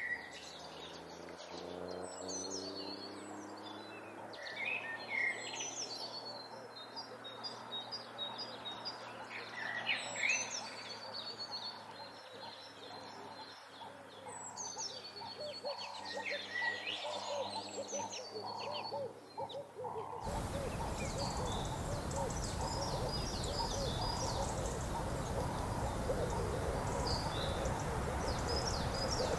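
Several birds chirping and calling in short, repeated high notes over a low steady hum. About two-thirds of the way through, the background switches abruptly to a louder, steady hiss while the chirping goes on.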